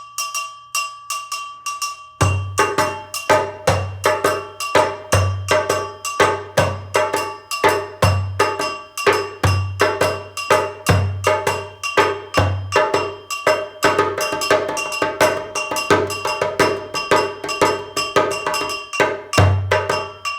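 Hand percussion playing an African rhythm: a ringing, bell-like pattern of sharp strikes alone for about two seconds, then a drum joins with deep bass strokes. The pattern repeats steadily.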